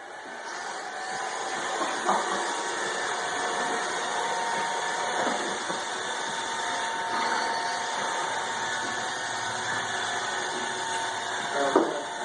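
Suction fans of a homemade robot vacuum, several small server cooling fans wired in series, spinning up over the first second or two into a steady whir with several pitched tones. A few short knocks and rattles sound about two seconds in and near the end.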